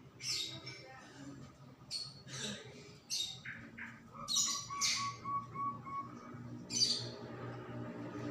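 Songbirds giving short, sharp chirps and squawks about once a second, with a quick run of evenly repeated notes around the middle, over a steady low hum.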